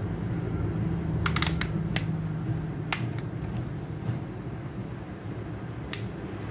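A few light, sharp clicks and taps of small tools handling a phone's circuit board, a cluster about a second in and then single ones, over a steady low hum.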